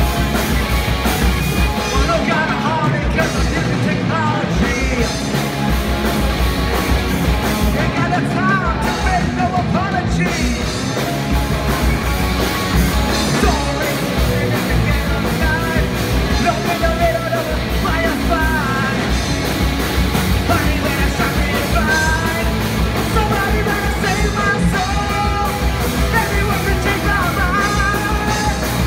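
Live rock band playing punk rock: electric guitars, electric bass and drum kit through stage amplifiers.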